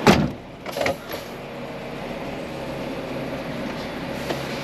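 Volvo FH 540 truck's inline-six diesel running, heard from inside the cab as a steady drone with a faint hum. A sharp knock right at the start and a smaller one a little under a second in.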